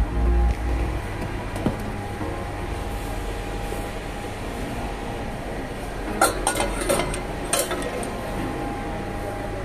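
Stainless steel saucepans clinking against each other on a display rack: a quick cluster of metallic clinks about six seconds in and another about a second and a half later, over a steady background hum.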